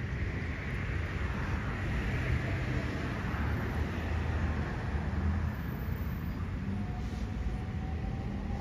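Steady low outdoor rumble with a hiss on top, like wind on the microphone or distant road traffic, with no distinct events.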